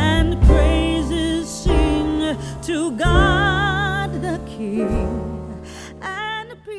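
Background music: a song with a voice holding notes with vibrato over piano and bass, fading toward the end.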